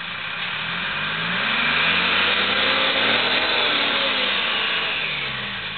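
M561 Gama Goat's Detroit Diesel 3-53 two-stroke diesel engine pulling hard offroad, its pitch rising over the first couple of seconds and falling away near the end, loudest in the middle.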